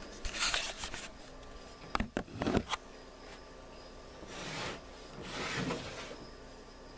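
A few sharp knocks as a camera is set down, then a clear plastic storage tub slid out along a wooden shelf, making two rubbing scrapes in the second half.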